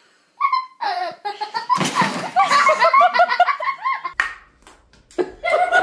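People laughing in bursts, with a short noisy rush about two seconds in. After a brief lull near four seconds, laughter starts again.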